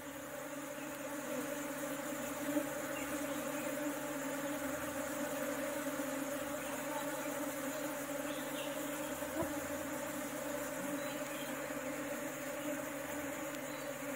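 A dense mass of honeybees buzzing in a steady, even hum as the colony is scooped by hand into a wooden hive box. A couple of faint knocks sound over the hum.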